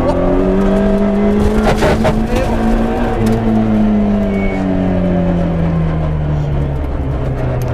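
Citroën Saxo A6 rally car's engine heard from inside the cabin, pulling with the revs rising, a few short knocks about two seconds in, then the revs falling slowly as the car slows.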